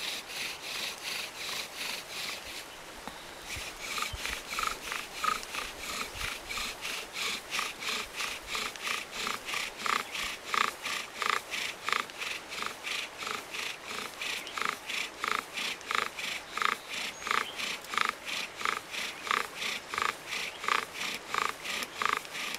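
Bow-drill fire starting: a dead-alder spindle rasping and squeaking in a cedar hearth board with each pass of the bow, in a steady rhythm of about three strokes a second. The friction is building heat toward an ember.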